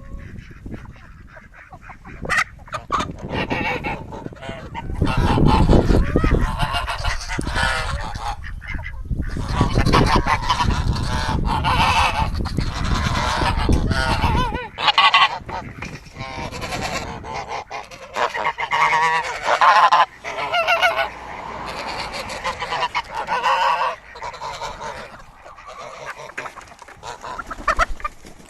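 Domestic geese honking over and over, many calls overlapping. A low rumble sits underneath from about five seconds in until about fifteen seconds in.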